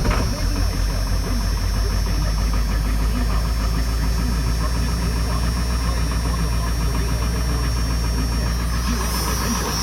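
Car engine idling steadily on a cold start in 22-degree weather after sitting unstarted for four weeks; it settles into its steady run about half a second in.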